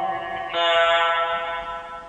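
Quran recitation: a reciter's voice chanting in long, held melodic notes. One note trails off about half a second in, and a new one begins and fades toward the end.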